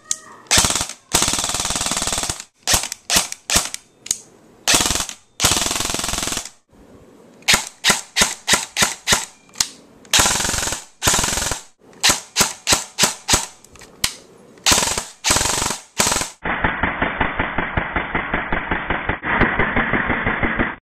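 Airsoft electric guns, a KWA SR10 and an Echo1 Stag 15 M4, firing on an 8.4 V battery in a rate-of-fire test: quick single shots, short bursts and longer full-auto strings, the gearbox cycling with each shot. Near the end one long, fast full-auto string sounds duller.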